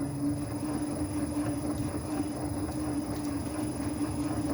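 Machine spindle running with a steady hum while a spot facer cuts slowly into an aluminum cylinder head, a rough, even cutting noise over the hum.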